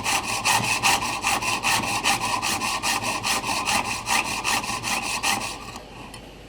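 Piercing saw with a fine 32-teeth-per-inch blade cutting brass plate: a steady rasp in quick, even back-and-forth strokes that stops shortly before the end.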